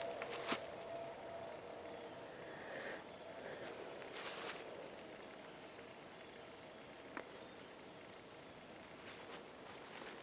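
Steady high-pitched insect chorus droning throughout, with a few footsteps on the ground at about half a second, four seconds and seven seconds in.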